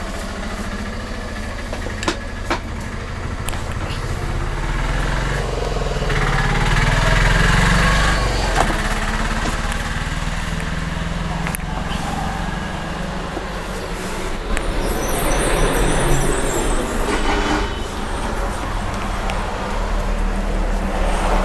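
Road traffic running steadily, with louder vehicles passing twice, and a few sharp clicks or taps near the start.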